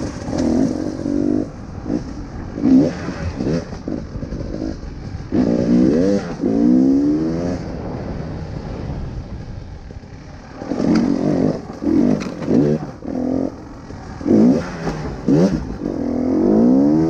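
KTM 300 EXC TPI two-stroke enduro bike engine revving up and falling back in repeated short bursts as the throttle is worked over the obstacles, with a quieter stretch in the middle.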